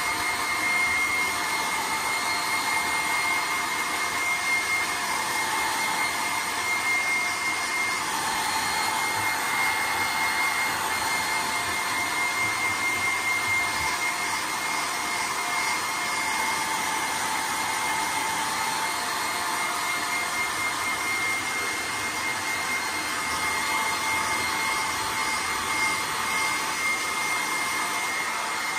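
Handheld hair dryer running steadily, blowing warm air onto a wet dog's coat: a constant rush of air with a steady high whine.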